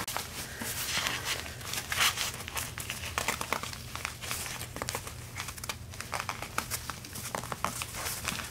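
Fabric cover of a Graco Pack 'n Play Cuddle Cove napper rustling and crinkling as hands tuck and smooth it around the padded frame: a continuous run of small, irregular crackles, the strongest about two seconds in.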